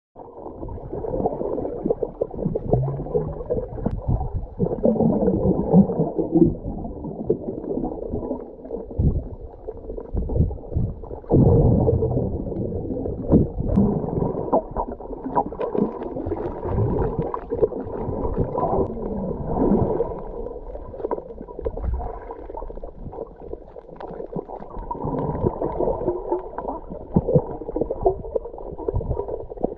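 Muffled underwater sound of water moving and gurgling around a submerged camera, with scattered small knocks and pops.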